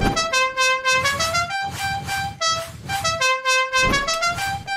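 Red corded telephone ringing with an electronic melody of beeping tones that step up and down in pitch, the phrase heard twice. A deep thump sounds at the start and again near the end.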